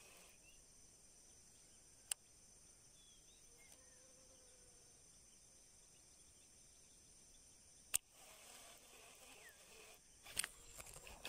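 Faint riverside ambience: a steady high insect drone with a few faint chirps. A sharp click sounds about two seconds in and another near eight seconds, and a quick run of knocks and clicks comes in the last second or so, as a fish strikes the line.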